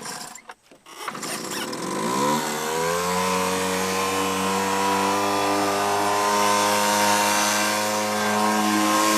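Sears 1.2 HP air-cooled outboard motor starting: a few knocks, then it catches about a second in, its pitch rising over a second or so before it settles into a steady run.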